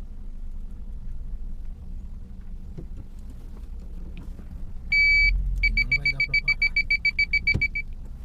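A car's electronic warning beeper gives one longer beep and then a fast run of about sixteen short beeps, roughly seven a second, over the low rumble of the car. A single knock comes near the end.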